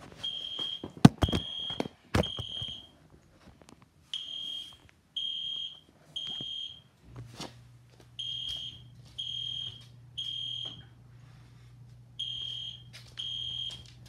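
Fire alarm sounding a high beeping tone in repeated groups of three with a pause between groups, the temporal-three evacuation signal of an activated alarm after the pull station has been pulled. A few sharp knocks come in the first couple of seconds, the loudest about a second in.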